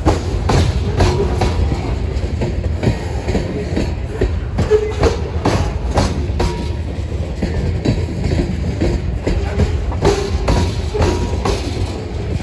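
Freight cars of a grain train rolling past with a steady low rumble. The wheels click irregularly over rail joints, with a few short squeals from the wheels.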